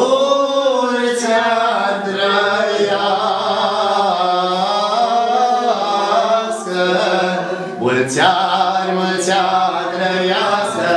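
Slow, drawn-out singing: a voice holding a wavering melody over a steady low drone, with short breaks about 2, 7 and 8 seconds in.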